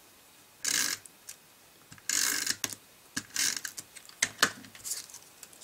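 Paper craft handling: three short scraping, rustling bursts of card stock and adhesive, with a few sharp clicks about four seconds in.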